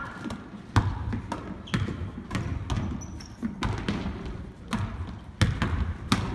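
Basketball bouncing on a hardwood gym floor: several sharp bounces at uneven intervals as players dribble and shoot.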